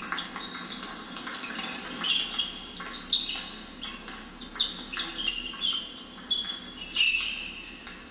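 Rubber-soled sports shoes squeaking on a sports-hall floor as table tennis players move about the table: many short, high squeaks, some stepping in pitch, with a few light clicks in the first second.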